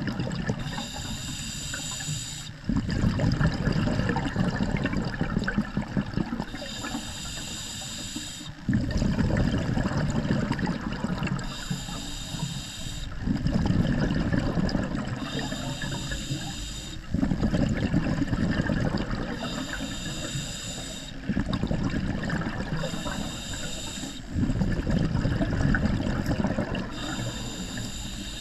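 Scuba diver's open-circuit breathing through a regulator underwater: a hissing inhale with a high, banded whistle, then a longer and louder low gurgle of exhaust bubbles. The cycle repeats about six times, roughly every four to five seconds.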